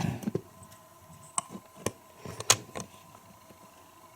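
Lego plastic bricks clicking and tapping as pieces are handled and pressed into place: a few sharp, irregularly spaced clicks.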